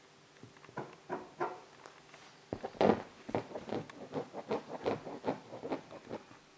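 Rough collie puppy scrambling over a blanket on a sofa: a run of soft paw taps and fabric rustles, about three or four a second, picking up about two and a half seconds in, with the loudest near three seconds in.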